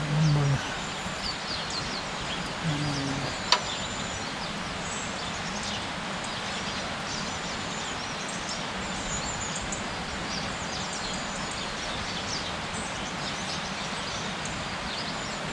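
Birds chirping over a steady outdoor background hiss, with one sharp click about three and a half seconds in and a brief low murmur of a voice near the start.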